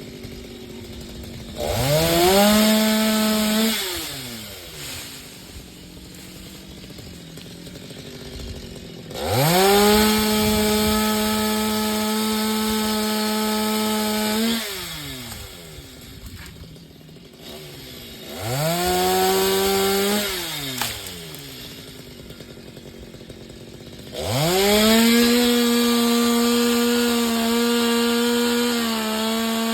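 Chainsaw cutting coconut-tree wood, run up to full speed four times and held there for a few seconds each time, dropping back to idle in between.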